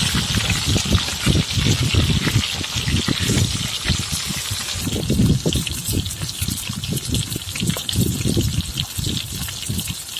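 Oil sizzling and bubbling around whole pomfret shallow-frying on a wide iron pan, with a constant crackle and frequent low pops.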